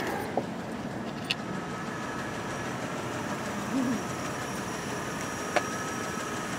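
Steady hum of a vehicle engine idling, with a few faint clicks and a short soft voice-like sound about four seconds in.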